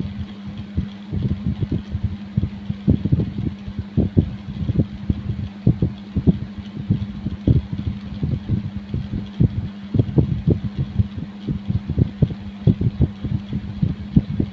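A coin scraping over skin in kerokan, short repeated strokes about three or four a second, over a steady low hum.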